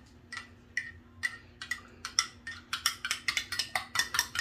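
Metal spoon clinking against the inside of a ceramic coffee mug while stirring, about two clinks a second at first, then quicker and more tightly spaced from about three seconds in.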